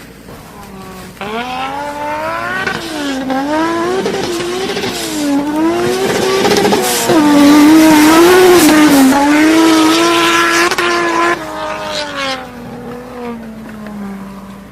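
A car engine revving hard and repeatedly at high rpm, its pitch swinging up and down over and over. It is loudest a little past the middle, then drops off suddenly and winds down with a falling pitch near the end.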